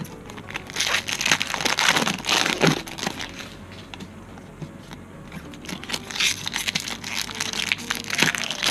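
Foil Pokémon booster pack wrappers being crinkled and torn open by hand, in two bouts of rustling: one from about a second in to about three seconds, another starting near six seconds.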